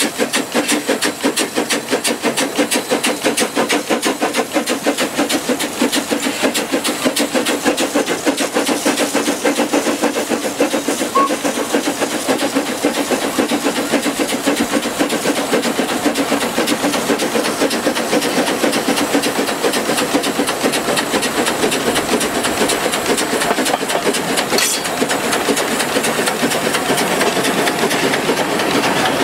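Small steam tram locomotive working under way, its exhaust chuffing in a quick, steady rhythm over a hiss of steam.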